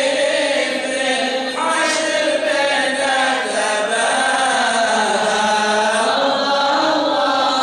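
Men's voices chanting together without instruments, a slow, drawn-out devotional mawlid chant in praise of the Prophet Muhammad.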